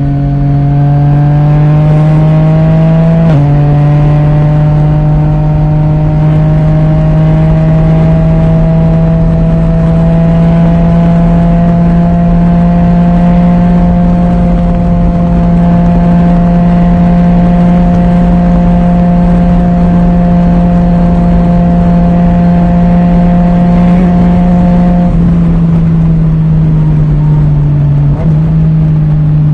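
Yamaha Tracer 900 GT's three-cylinder engine through an Akrapovic titanium full exhaust with the dB killer removed, heard onboard while riding. The engine note climbs, drops sharply as it shifts up about three seconds in, climbs again and holds a steady cruise, then eases off in the last few seconds.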